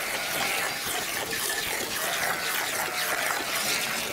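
A goat being hand-milked: repeated streams of milk squirt into a metal pan that already holds milk, making a steady, rhythmic hiss.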